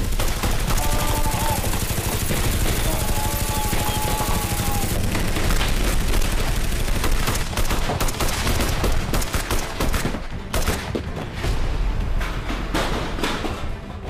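Dense, rapid gunfire sound effects like automatic weapons firing, with a heavy low rumble; the volley thins out somewhat in the last few seconds.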